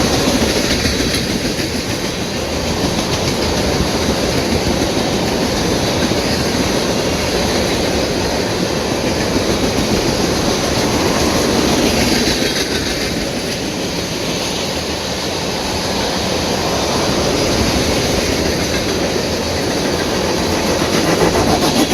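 Freight train of railroad tank cars rolling past, a steady noise of steel wheels on the rails that swells and eases slightly.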